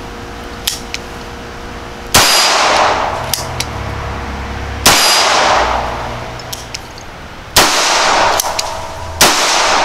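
Four shots from a Bond Arms Stinger double-barrel derringer pistol in .380 ACP firing 95-grain full metal jacket practice loads, each with a long fading ring. The first two come about 2.7 seconds apart, and the last two about a second and a half apart. Faint clicks come between them.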